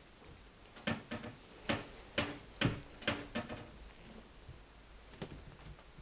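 A quick, uneven run of sharp wooden knocks and clacks, about two a second for a few seconds, some with a short hollow ring. Two faint clicks follow near the end.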